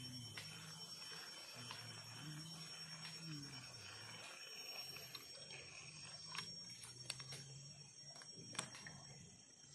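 Steady high-pitched insect drone from the riverside forest over a faint low wavering hum, with a few sharp clicks in the second half.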